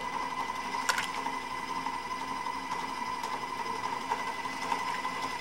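Electric stand mixer running steadily, its paddle beating butter and granulated sugar together to cream them; a brief click about a second in.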